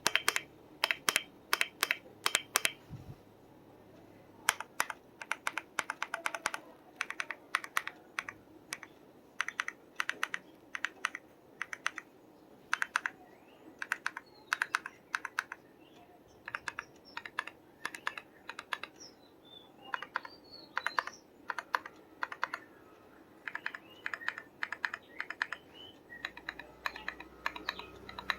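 Star80 Ultra mechanical keyboard with Akko Chocolate keycaps being typed on: quick runs of sharp key clacks in bursts, with short pauses between them.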